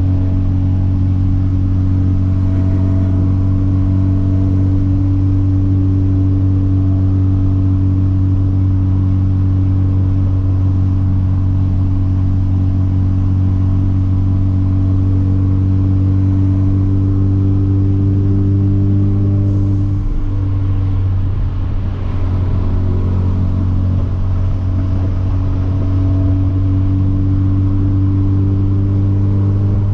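Hyundai Veloster Turbo's turbocharged 1.6-litre four-cylinder with a catless downpipe, running at a steady engine speed while cruising, heard from inside the car with the windows down. About twenty seconds in the engine note drops briefly, then settles back to a steady tone.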